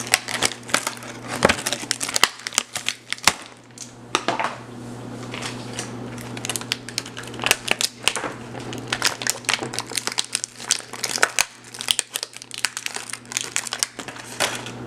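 Crinkling and crackling of plastic toy packaging being handled and opened by hand, with many small irregular clicks and snaps over a steady low hum.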